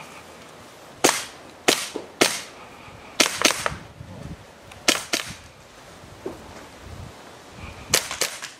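Airsoft pistol firing about nine sharp pops. The first three come about half a second apart, then three quick pairs follow with pauses between them.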